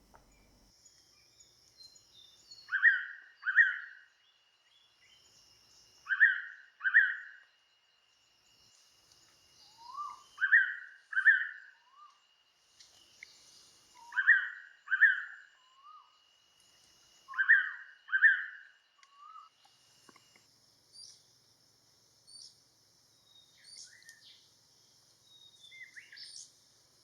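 Blue-winged pitta calling: a loud two-note whistle, repeated five times at intervals of three to four seconds. Fainter scattered chirps follow over the last few seconds.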